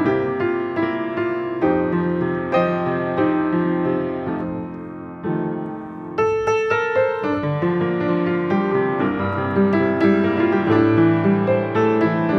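Solo upright piano playing melody over sustained chords. It softens briefly, then a louder, brighter run of chords comes in about six seconds in.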